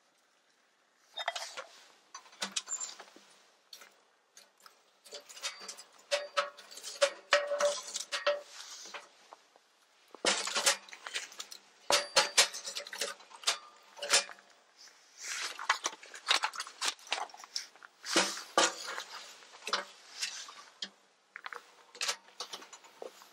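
Metal cookware and utensils being handled: a run of sharp clinks, knocks and scrapes in clusters, some with a short ringing note.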